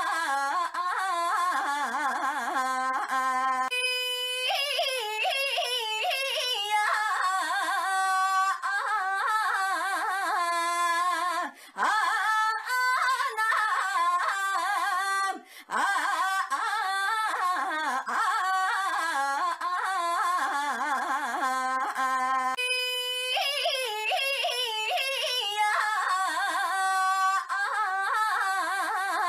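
A young woman's high, sing-song voice calling out "ainya" over and over, drawn out and wavering up and down in pitch. The same stretch of audio repeats as a loop, about every 19 seconds.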